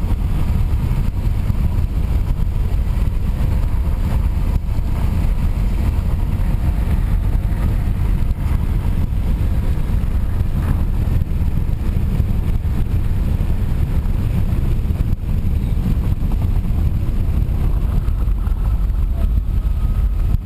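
A car driving along a highway at steady speed, with a continuous low rumble of road and engine noise.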